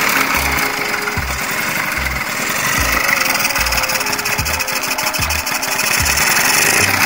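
Yamaha Jog scooter's small two-stroke engine running steadily, just after a kickstart. It is firing again on a newly fitted 2-in-1 CDI ignition coil that replaced a dead coil.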